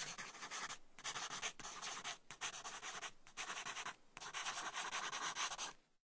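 Scratchy writing strokes on paper, five of them in a row with short breaks between, ending about a second before the end.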